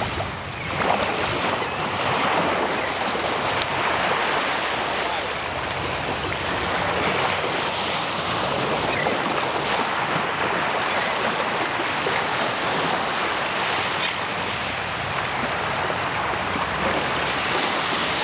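Small surf breaking and washing up on a sandy beach, a steady rushing wash, with wind buffeting the microphone.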